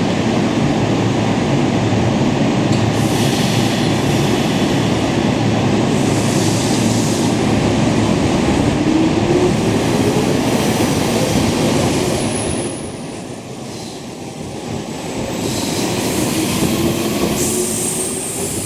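Hanshin 5001-series electric commuter train pulling out of a station and passing close by: a loud, steady rumble of wheels and running gear, with the traction motors' whine rising in pitch twice as the train gathers speed. The noise eases briefly about two-thirds of the way through and fades as the last cars go by.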